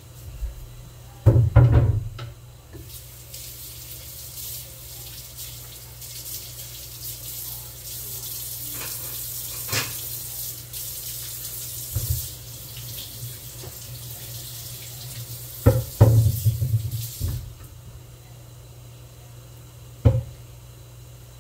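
Kitchen tap running into a sink for about fourteen seconds as a steady hiss, with loud clunks just before the water comes on and again just before it is shut off.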